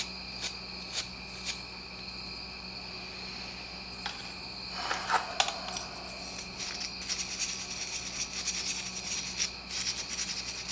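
Small parts and tools being handled during disassembly: a few light clicks, then rustling and clattering from about halfway through, over a steady high chirring of crickets.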